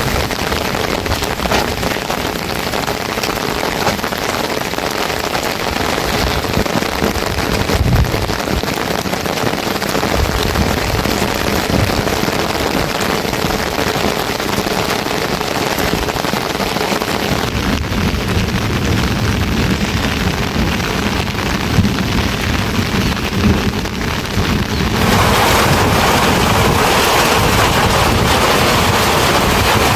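Heavy rain falling steadily, a dense hiss of drops on surfaces. About 25 seconds in it abruptly gets louder and fuller.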